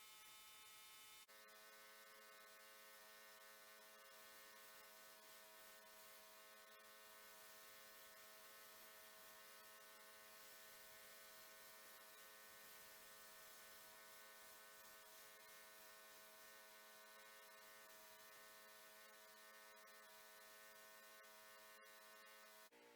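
Near silence with a faint steady hum of several held tones, which shift to a new set about a second in and again near the end.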